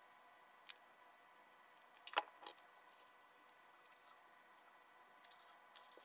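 Quiet handling sounds of a foam-board model wing and a hot glue gun: a single click, then a louder cluster of sharp clicks and scrapes about two seconds in, and light taps near the end. A faint steady hum runs underneath.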